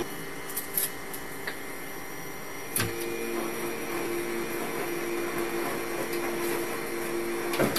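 A steady machine-like whirring drone with a constant low hum, like a small motor or appliance running, with a few faint clicks, the clearest about three seconds in.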